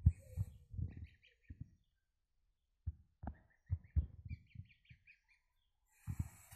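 Goslings peeping: short high calls in quick little runs, with soft low thumps between them.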